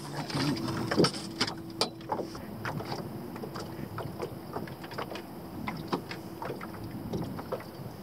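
Irregular small knocks and taps in a small fishing boat on the water, with a faint steady hum under them.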